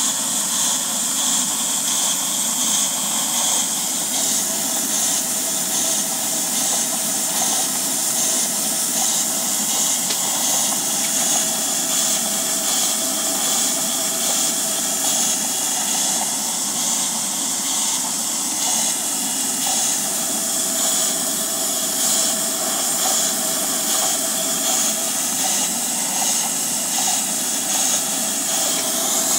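Model McOnie's steam engine running on live steam: a steady hiss of steam with the mechanical running of the engine.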